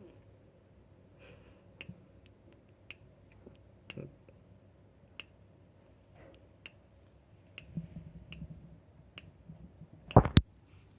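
A series of sharp, irregular clicks, roughly one a second, then a loud double thump about ten seconds in.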